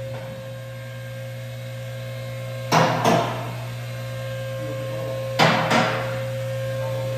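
Car lift's electric hydraulic pump motor humming steadily as it raises a car, slowly growing louder, with a sharp metallic clank about three seconds in and two more around five and a half to six seconds in.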